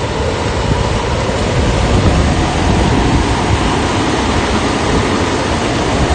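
Strong wind buffeting the microphone: a loud, steady rushing noise that flutters in the low end.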